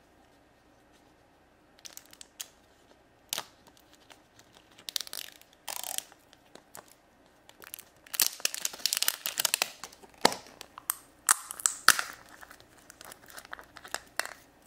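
Plastic wrapping being torn and crinkled off a plastic surprise egg: scattered crackles at first, then a dense run of crinkling, followed by a few sharp plastic clicks as the egg's two halves are pulled apart.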